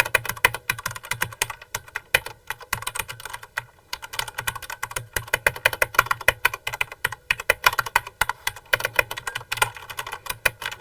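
Fast typing on a mechanical keyboard with Cherry MX Red switches, which are linear and need 45 g to press: a dense run of key clacks with a short pause about four seconds in.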